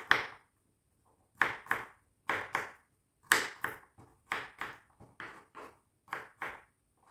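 Kitchen knife chopping through an onion into medium pieces, a steady run of sharp knocks about two a second, often in pairs.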